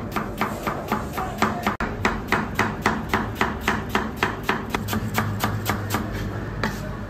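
Knife chopping vegetables and herbs on a cutting board: a steady run of sharp knocks, about four a second, stopping shortly before the end.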